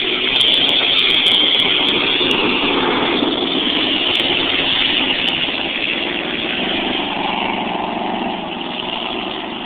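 Several powerboat engines running together in a loud, steady drone that eases off slightly in the second half.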